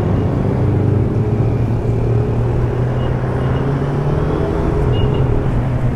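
Motorcycle engine running at a steady speed while riding.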